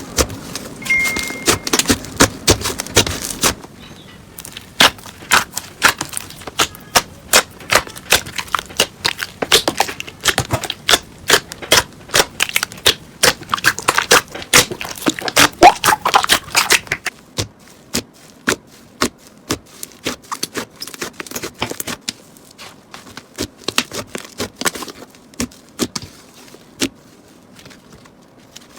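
Slime being squeezed and pressed, giving rapid, irregular clicking pops. The pops are dense through the first half and thin out after about 17 s.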